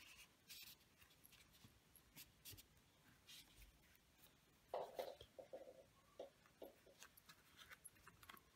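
Faint scratching and rustling of a steel crochet hook drawing yarn through single crochet stitches, with light ticks throughout and a slightly louder rustle about five seconds in.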